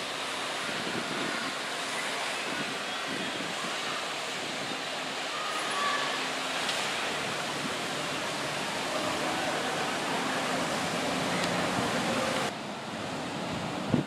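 Steady outdoor noise of wind and distant surf, with faint far-off voices. About twelve seconds in it cuts to waves breaking on the beach, a duller, steady wash of surf.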